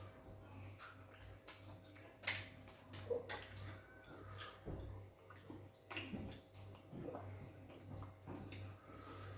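Wet eating sounds of chewing fufu with egusi soup: scattered short smacks and squelches over a low steady hum.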